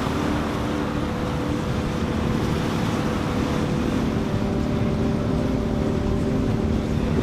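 Motorboat engines running steadily with a continuous hum, over a steady rush of wind and water.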